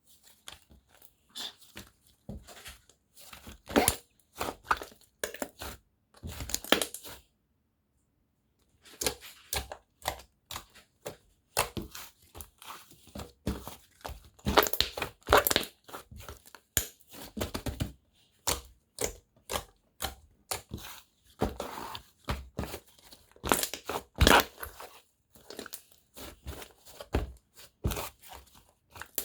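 Handmade slime being squeezed, folded and stretched by hand, giving dense, irregular popping and crackling clicks. The clicks stop briefly about eight seconds in.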